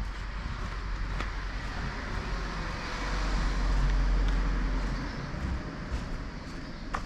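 Outdoor street noise: a steady low rumble and hiss that swells to its loudest around the middle, then fades back.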